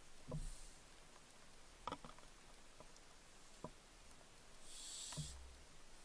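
Barn owl hissing: two short, breathy hisses, a faint one near the start and a louder one about five seconds in, with a few faint clicks and knocks between them.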